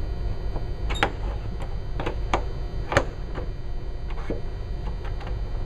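Scattered sharp clicks and taps, the loudest about one and three seconds in, as the windshield bag's metal mounting tabs are pushed down and the bag is worked in between the windshield and its bracket. A steady low hum runs underneath.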